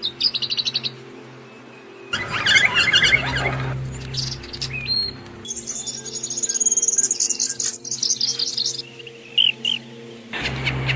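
Songbirds chirping and singing: a quick high trill at the start, a burst of overlapping chirps about two seconds in, a long high rapid trill in the middle, and two short calls near the end.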